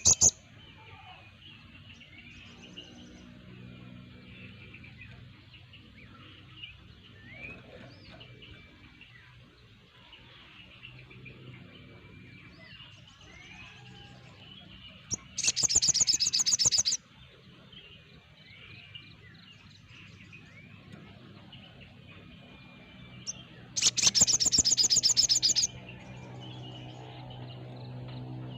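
A flock of crested jays (sogon) calling: faint chirps and whistles throughout, and two loud, rapid rattling calls of a second or two each, one just past halfway and another about eight seconds later. A low steady hum runs underneath.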